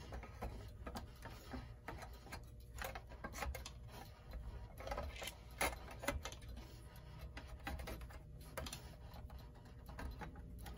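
Irregular small clicks and scrapes as a wire worked through an opening in a desk clock's case turns the clock's back cover.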